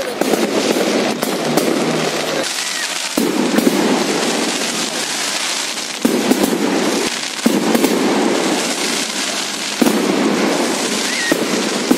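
Many fireworks going off at once: a dense run of sharp bangs and crackles over a continuous rumble of more distant explosions.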